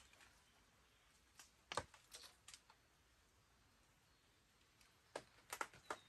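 Campfire wood crackling and popping: scattered sharp pops, the loudest a little under two seconds in with a few smaller crackles after it, then a quick run of pops near the end.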